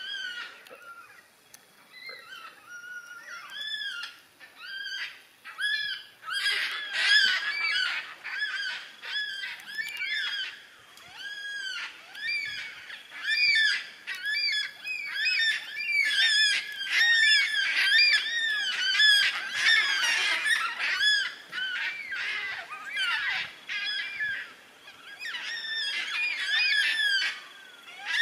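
A flock of black cockatoos calling: many loud, overlapping calls, each rising and then falling in pitch. They are sparse at first and become a dense chorus from about six seconds in.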